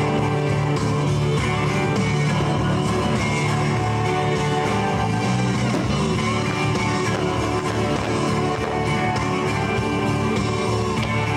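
Music: a guitar-backed song.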